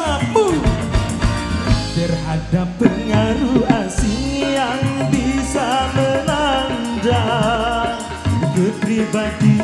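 Live band music from an Indonesian orkes melayu group: drums, hand drums, electric guitars and keyboard, with a wavering lead melody over a steady bass and beat.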